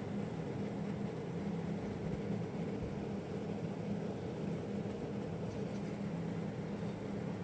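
Cooling fans of a PC in a SuperMicro SC801-AX server tower running steadily: an even whooshing hum with a low droning tone.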